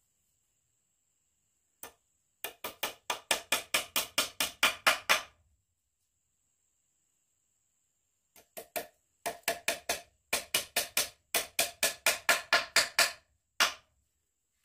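A hammer striking wood in quick, even blows, about five a second, in two runs with a pause of about three seconds between them. Each blow rings briefly, and the blows grow louder through each run.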